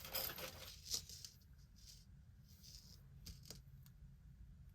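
Metal costume jewelry clinking and jangling as it is handled and set down, busiest in the first second, then quieter rustling with two light clicks past the middle.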